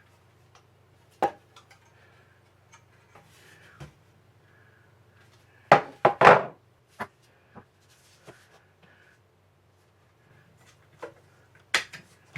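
Scattered knocks and clicks of a Daisy 880 air rifle's plastic stock and parts being handled and worked loose as the stock is removed. The loudest is a cluster of knocks about six seconds in, with another sharp knock near the end.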